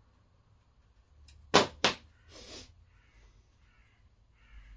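Two sharp clicks about a third of a second apart, from small parts being handled at a workbench, then a crow cawing several times.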